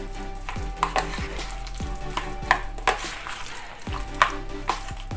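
A utensil stirring a sticky mayonnaise mixture in a plastic tub: soft wet scraping broken by irregular clicks and knocks against the tub, the sharpest about two and a half and four seconds in.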